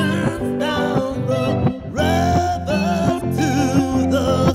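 Guitar-led music, with a melody line that glides and wavers.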